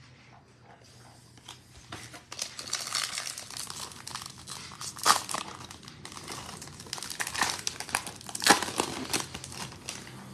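Foil wrapper of a 2021 Panini Prizm football card pack crinkling and tearing as it is opened by hand and the cards pulled out, with the sharpest crackles about five and eight and a half seconds in.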